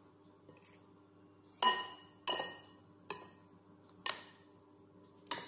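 Metal spoon clinking against the bowl while mixing diced cauliflower salad: five sharp, briefly ringing knocks about a second apart, starting about a second and a half in.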